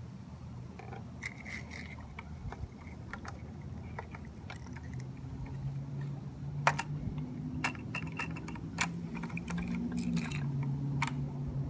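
Small sharp clicks and light scrapes of a diecast model garbage truck's cart tipper and a toy cart being handled, with several distinct clicks from about halfway in. Under them a low engine hum grows louder from about halfway in.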